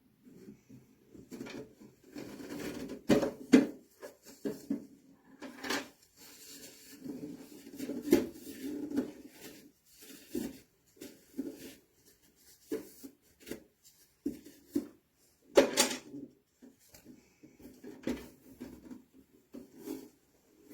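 Irregular knocks, clatter and rubbing of objects being handled, with a few sharper knocks among them.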